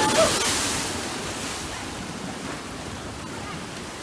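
Rushing noise of wind and breaking water, loudest in the first second and then steady.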